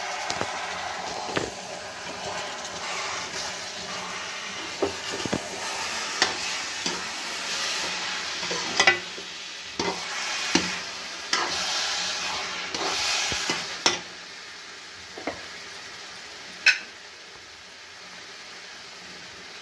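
A metal spatula stirs and scrapes grated-carrot halwa in a metal kadhai as the added ghee sizzles steadily, with scattered sharp clicks of the spatula against the pan. About 14 seconds in the stirring slows and the sizzle grows quieter, with only a couple more clicks.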